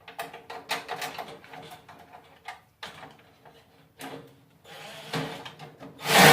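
Hand work on a trash compactor's metal parts: a run of small clicks and knocks, then a scraping noise that ends in one loud clank.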